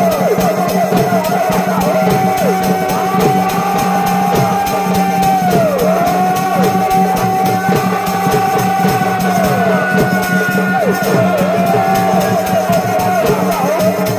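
Live folk theatre music: a held melody line that repeatedly bends down in pitch and back up, over steady drumming and a constant low drone.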